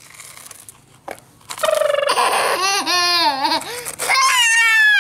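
Toddler's excited squealing and laughing vocal sounds: a wavering squeal about two seconds in, then a long falling squeal near the end.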